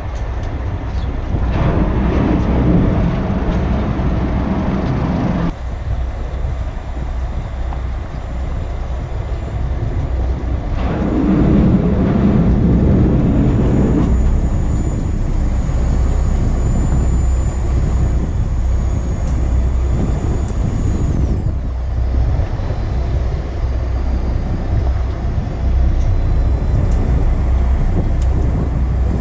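Steady low rumble and wind noise aboard a small fishing boat at sea, swelling twice. A faint high whine comes in partway through and cuts off suddenly about three-quarters of the way in.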